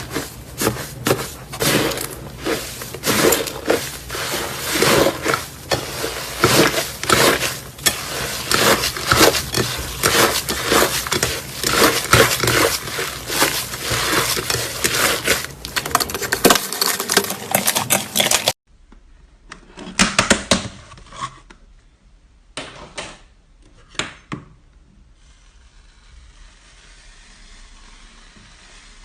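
Slime being squeezed and worked by hand, with dense rapid crackling and popping. About two-thirds of the way through it cuts to a quieter stretch with a few short bursts of squishing and popping over a faint hiss.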